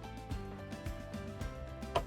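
Background music with a steady beat and held notes, and one sharp click near the end.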